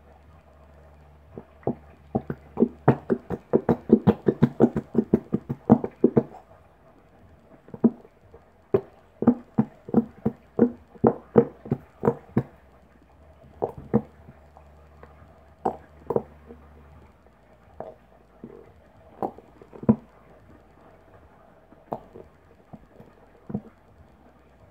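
Plastic bottle of clear Elmer's glue held upside down and squeezed over a plastic bowl to empty it: a fast run of sharp clicks and knocks, about four or five a second, starting a couple of seconds in, then a second cluster and scattered single knocks.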